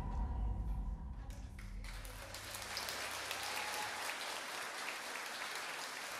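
The end of the routine's music fades out over the first couple of seconds, then audience applause with many hands clapping takes over.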